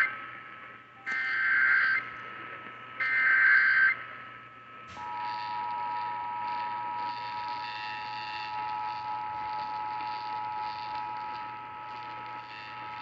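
Emergency Alert System tones over AM radio: the last two of three short screeching SAME data-header bursts, then, about five seconds in, the steady two-tone attention signal, a harsh chord of two pitches held without a break. This signals the start of an EAS activation, here for a severe thunderstorm warning.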